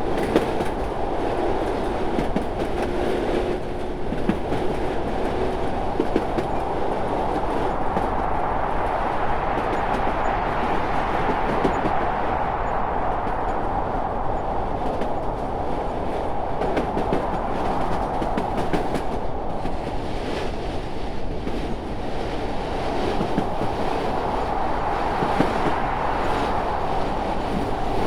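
Train running on rails: a steady rumble with scattered clicks of wheels passing over rail joints.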